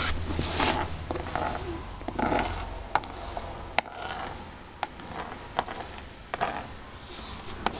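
Handling noise: rustling and scraping, then a few small sharp clicks about a second apart, as small plastic toy figures are moved over a wooden floor close to a handheld phone.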